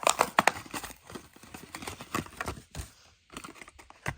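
Hot Wheels blister card being opened by hand: irregular crackles, clicks and knocks of plastic and cardboard, busiest in the first second or so, then sparser.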